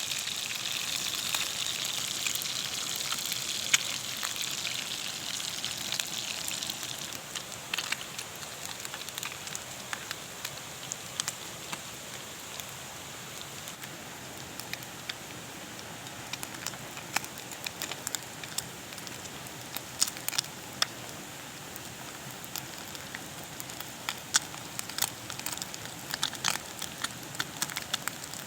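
Wood campfire crackling with scattered sharp pops. A steady hiss, likely food sizzling over the fire, fades out about six seconds in.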